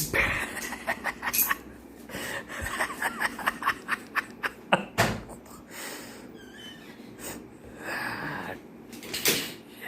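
A man laughing in short bursts, with scattered sharp taps and knocks.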